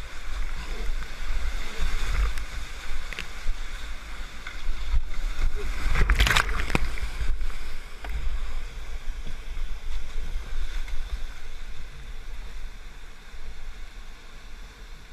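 Whitewater rapids rushing and churning around a kayak as it runs down through them, heard close on a point-of-view camera with a deep rumble of water buffeting the microphone. A loud splash comes about six seconds in.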